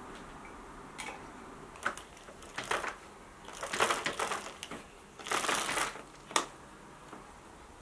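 Window blind being drawn by its bead chain: the chain runs through the blind's mechanism in two longer rattling pulls, ending in a sharp click. A few short handling noises come before.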